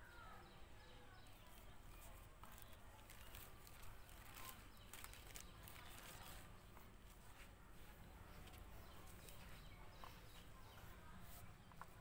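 Faint rustling and crinkling of a thin plastic bag sheet as it is unfolded and spread out by hand, heaviest a few seconds in.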